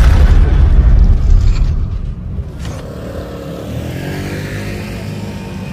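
A loud, deep bass logo sting, which cuts off about two seconds in. It gives way to the open-air sound of a street parade over a steady low engine hum.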